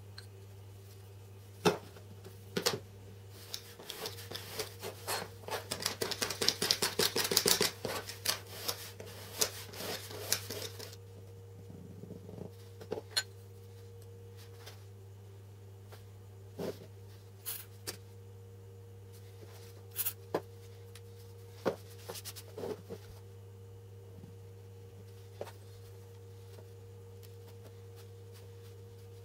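A bent sheet-metal cover and a metal bar being handled by hand on a wooden table, giving scattered clicks and taps. From about 4 to 11 seconds in there is a run of rapid clicking and scraping as metal rubs on metal while the cover is slid into place. A steady low hum runs underneath.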